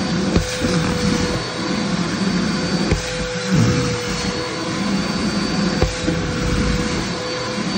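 Vacuum cleaner running with a steady whine, its nozzle sucking and slurping at a hanging T-shirt. The note flutters and briefly drops about three and a half seconds in as fabric is drawn against the nozzle, with a few short knocks.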